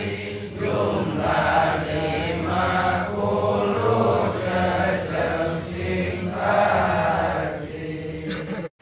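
A congregation of men chanting together in unison, a rhythmic religious recitation in short repeated phrases. It breaks off suddenly near the end.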